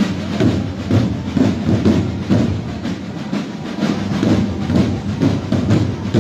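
Marching drums playing a steady beat, struck in an even rhythm.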